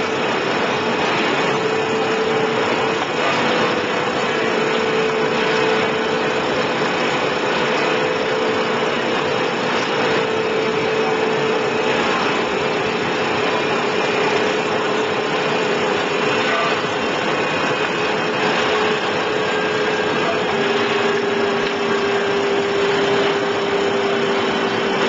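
Arc of an automated roller-arcing welder hard-facing a sugar mill crusher roller: a steady crackling hiss with a faint wavering hum under it.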